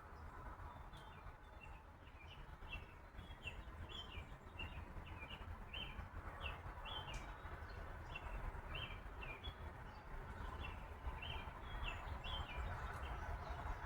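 A bird chirping over and over in short, high notes, over a steady low rumble.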